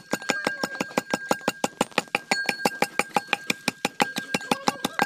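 Wooden pestle pounding garlic and chillies in a rusty metal can used as a mortar, a fast, even run of knocks at about five or six strokes a second.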